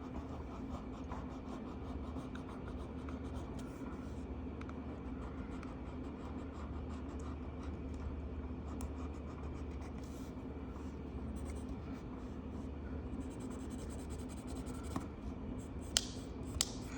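Marker tip scratching across paper as a coloring book page is filled in, over a steady low background hum, with a few sharp clicks near the end.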